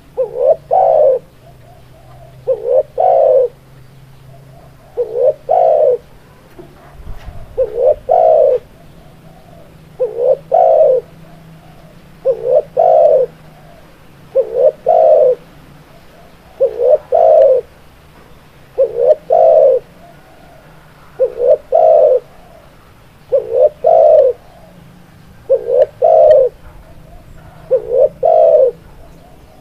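Spotted dove (tekukur) cooing: a two-part phrase, a short coo followed at once by a longer one, repeated at an even pace of about one phrase every two seconds or so.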